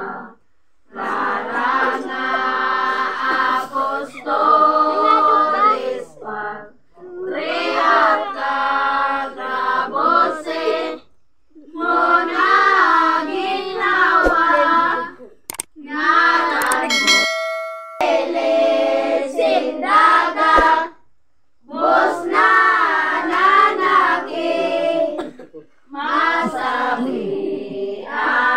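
A group of voices, mostly children, singing a devotional hymn together in phrases of a few seconds with short breaks between them.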